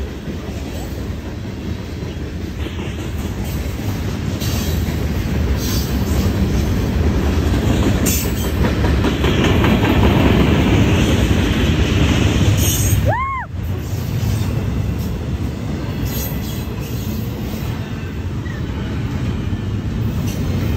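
Freight train cars rolling past close by: a steady rumble and clatter of steel wheels on rail, growing louder toward the middle and easing slightly later.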